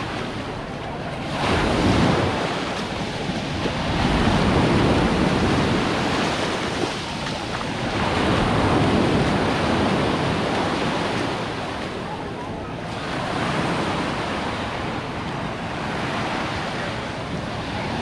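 Small sea waves breaking and washing up a pebbly beach, the surf swelling and fading every few seconds.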